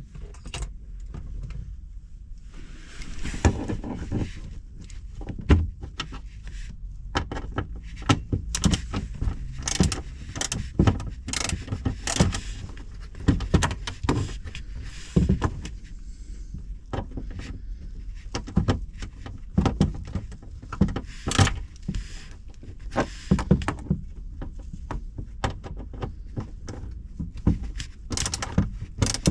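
Irregular clicks, clinks and knocks of hand tools and plastic dashboard trim being handled while bolts are undone inside a car.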